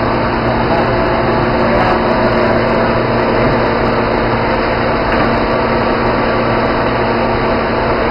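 Steady machine noise from a running motor or blower, with a constant low hum and no change in level.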